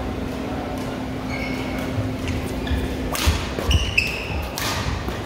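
Badminton doubles rally: a quick run of sharp racket hits on the shuttlecock about three to five seconds in, with short high squeaks of court shoes on the floor before and between them, in a large echoing hall.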